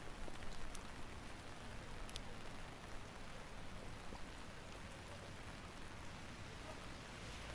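Steady rain falling on wet pavement and street, an even hiss, with a couple of faint high ticks in the first few seconds.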